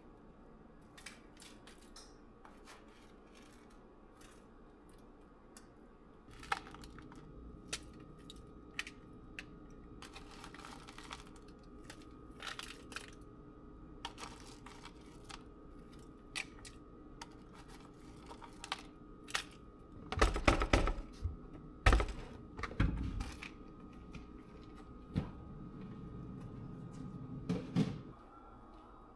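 Household handling sounds: scattered clicks and taps, with a steady hum that comes on about six seconds in and stops shortly before the end. A run of louder knocks comes about two-thirds of the way through.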